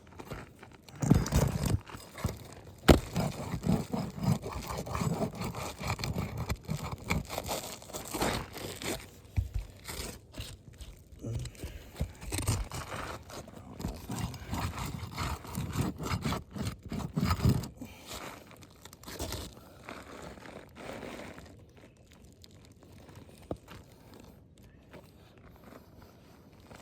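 Roof shingles being lifted and worked loose by hand, with scraping, tearing and crunching and a few sharp knocks. The shingles tear as they are lifted, the sign that they are not repairable. The handling noise dies down after about 18 seconds.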